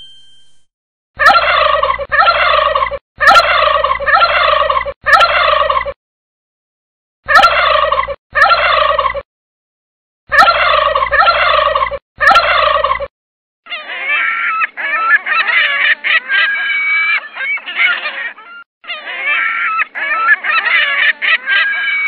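Domestic turkey gobbling: a run of repeated gobbles in groups, with brief pauses between them. In the second half, a busier stretch of overlapping, higher bird calls carries on without pauses.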